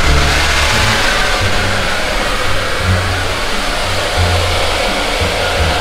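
Hand-held hair dryer with a diffuser attachment blowing steadily.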